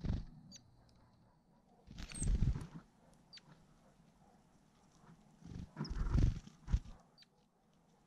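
Great tits giving a handful of single short, high call notes scattered through, with two louder low rumbling buffets, one about two seconds in and one around six seconds, ending in a sharp thump.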